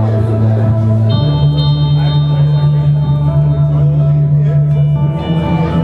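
Live electric guitar music played through effects, over a loud sustained low note that steps up in pitch about a second in and again near the end.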